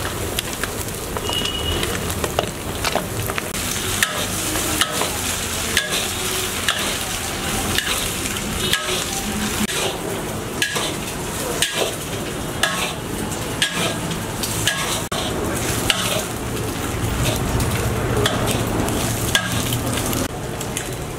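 Shredded cabbage and carrots sizzling in hot oil in an iron wok, stirred and tossed with a metal ladle that scrapes and clinks against the pan about once a second.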